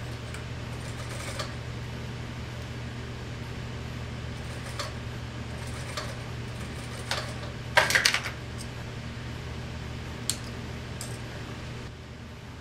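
Industrial sewing machine's motor humming steadily while the needle is not stitching, with scattered small clicks and rustles of the fur and tape being handled; a brief cluster of clatter about eight seconds in is the loudest sound.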